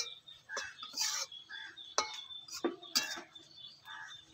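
A long metal spatula stirring a thick vegetable curry in a metal kadai, with several separate sharp clinks and short scrapes against the pan.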